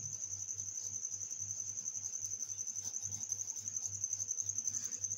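A cricket chirping steadily: one continuous high trill with a fast, even pulse, over a faint low hum.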